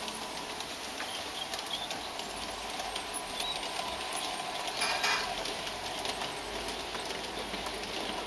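LGB G-scale model train running along garden track, its wheels clicking rapidly over the rail joints over a steady rolling noise. A short hiss comes about five seconds in.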